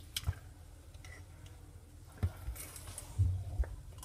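A few light clicks of spoons against plastic yogurt cups, with some soft low knocks near the end.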